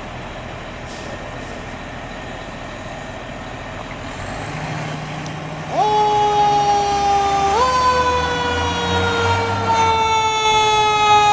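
Fire engine (American LaFrance Eagle pumper) pulling out with its diesel running, then about six seconds in a long steady blast of its air horns starts, steps up in pitch partway and slowly sags as it is held.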